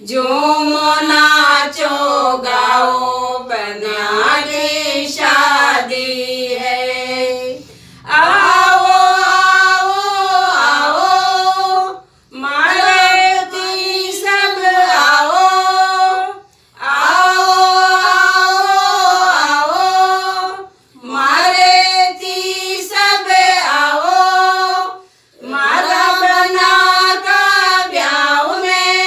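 A group of women singing a Hindi banna-banni wedding folk song together in unison, with no instruments. The song comes in phrases of about four seconds with short breaks for breath between them.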